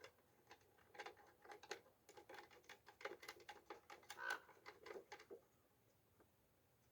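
Faint, quick, irregular clicks and light rattles of plastic parts being handled as the mounting knobs are screwed into the bird feeder's bracket; they stop about five seconds in.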